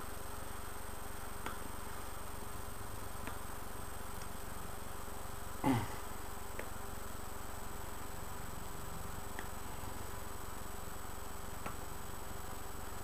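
Quiet room tone: a steady low hiss with a faint hum, broken by a few soft clicks and one brief sound about halfway through that drops quickly in pitch.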